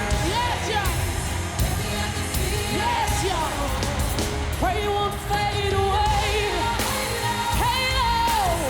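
Live pop ballad: a woman's voice sings long, gliding wordless runs with vibrato over a steady band.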